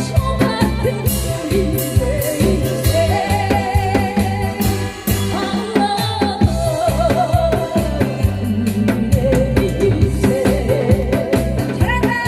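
Korean trot-style song: a backing track with a steady drum and bass beat, and a woman singing the melody with heavy vibrato.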